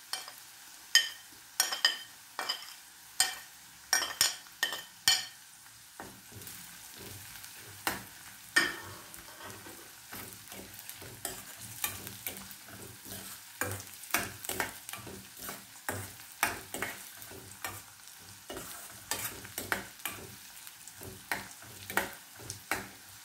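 Ginger, green chillies and curry leaves frying in sesame oil in a stainless steel kadai, sizzling lightly while a metal spoon stirs them, clinking and scraping against the steel. In the first few seconds the clinks are sharp and ringing, about one a second. After that they become quicker and irregular.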